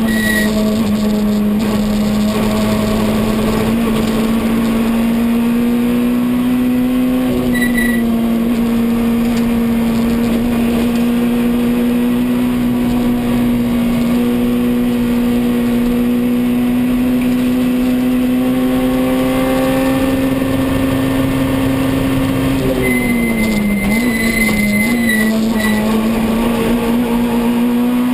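Citroën C2 R2 rally car's engine heard from inside the cockpit, running hard at a nearly steady high pitch under full load. Around three-quarters of the way through the pitch drops and wavers as the car slows, with a brief high squeal, then climbs again.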